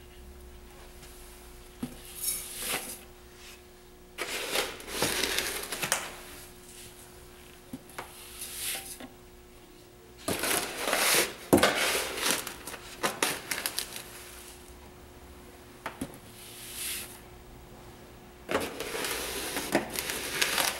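Dry Epsom-salt bath salts poured from a scoop into a large glass jar: three hissing pours of granules, with sharp knocks and clinks of the scoop against the jar between them.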